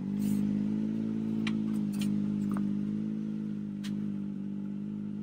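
A side-by-side UTV's engine running at a steady idle, its pitch picking up slightly at the start, with a few light clicks and knocks over it.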